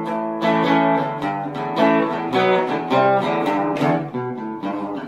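Guitar music: a solo guitar picking a melody of single notes and chords, several notes a second.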